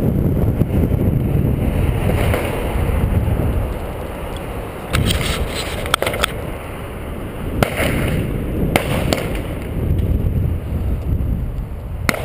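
Wind buffeting the microphone of a camera riding on a bicycle, over steady tyre rumble on pavement. Sharp rattling knocks come as the bike jolts over bumps: a cluster about five to six seconds in, one each near eight and nine seconds, and another near the end.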